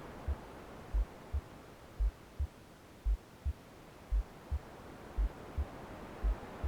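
Heartbeat sound for a womb soundscape: low lub-dub double thumps, a stronger beat then a lighter one, repeating about once a second, seven times. Beneath it a soft hiss of white noise that dims through the middle and swells again near the end.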